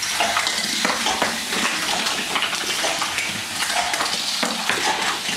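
Hot Wheels Volcano Blast playset running: die-cast toy cars rattle and clatter down the plastic track in a steady run of small clicks.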